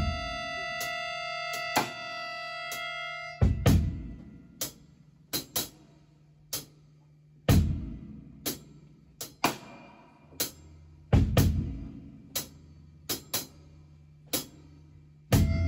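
Live rock band: a held chord rings for the first three seconds or so, then the drum kit plays alone in a sparse pattern of separate hits, heavy kick-and-cymbal strikes every few seconds with lighter hits between. The full band comes back in near the end.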